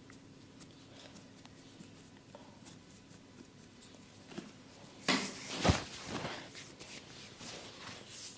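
Massage sounds of hands working on skin: soft rubbing and small clicks, then a few sharp, loud hits a little past the middle, the loudest about five and a half seconds in, followed by more rubbing.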